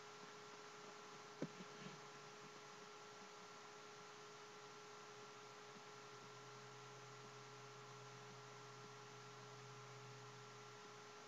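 Near silence: a faint steady electrical hum over hiss, with one small click about a second and a half in.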